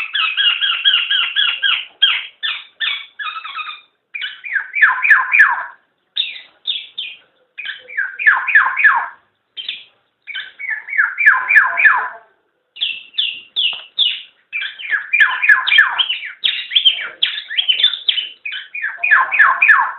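Black-naped oriole (kepodang) calling in bursts of quick repeated notes, a second or two each, with short pauses between them.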